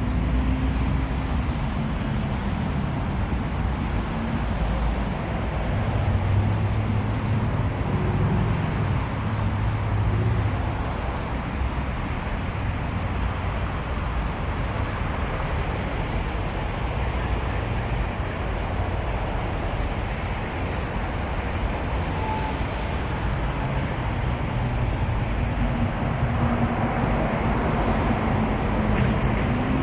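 Steady rumble of road traffic, with a deeper drone swelling between about six and ten seconds in.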